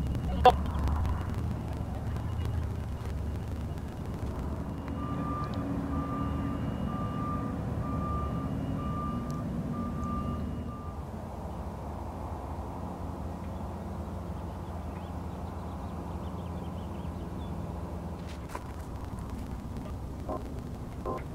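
Mobile crane's engine running steadily while it lifts a load, with its warning alarm beeping about once a second for several seconds, starting about five seconds in. A sharp click sounds just after the start.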